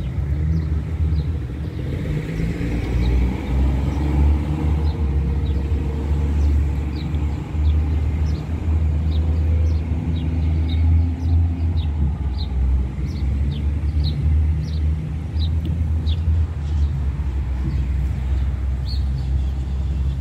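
Outdoor city-park ambience: a loud, steady low rumble throughout. From about four seconds in, short high bird chirps repeat about once or twice a second.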